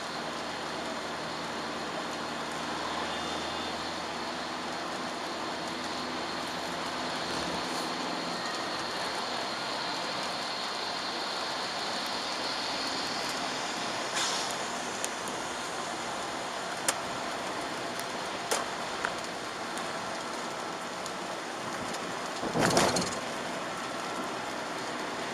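Steady road and rain noise inside a Chevrolet Aveo 1.4 petrol car on a wet road, with a low engine hum that drops away about a third of the way in. A few sharp clicks follow later, and near the end comes a louder, brief rushing burst.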